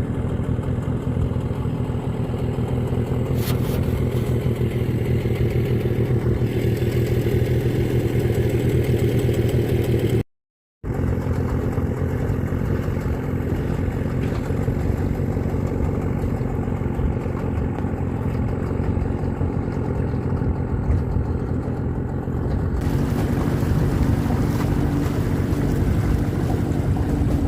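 Outboard motor of an aluminium jon boat running steadily under way, with hull and water noise, broken by a brief silent gap about ten seconds in.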